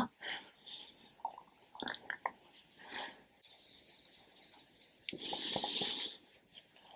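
Faint soft swishing of a fluffy makeup brush sweeping powder blush across the cheek, with a few small ticks; the loudest swish comes about five seconds in and lasts about a second.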